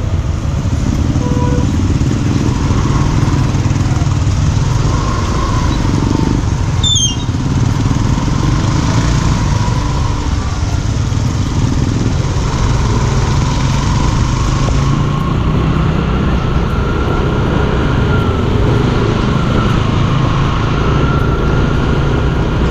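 Motor scooter running at road speed, its engine under steady wind and road noise, with tyres on a wet road surface. A brief high whistle falls in pitch about seven seconds in.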